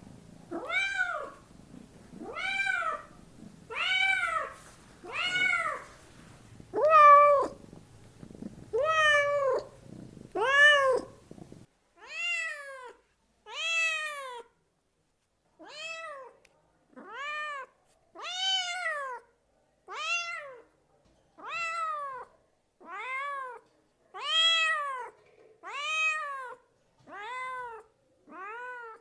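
A domestic cat meowing over and over, roughly once a second, each meow rising and then falling in pitch. About twelve seconds in, a low background hiss cuts out and the meows carry on a little quieter.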